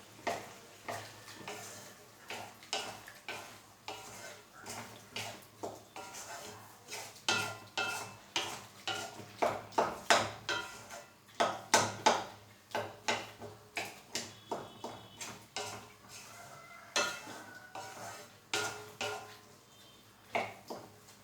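A utensil stirring in a cooking pan, scraping and knocking irregularly against the pan's sides, busiest and loudest about halfway through, as boiled chickpeas are mixed into the masala.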